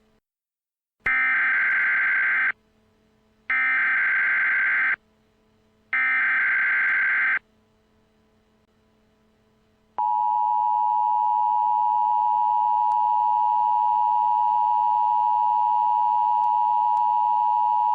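Emergency Alert System opening: three short bursts of warbling digital data tones (the SAME header), each about a second and a half long, then after a pause the EAS attention signal, a steady two-pitch tone held for about eight seconds.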